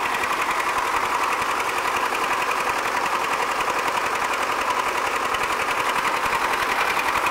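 A motor running steadily with a fast, even pulse.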